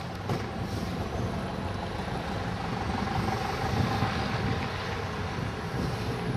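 Steady low rumble of motor-vehicle noise, without clear individual events.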